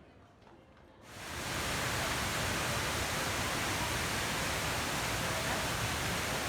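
A steady, even rushing hiss that starts suddenly about a second in, after a quiet start, and holds at a loud level.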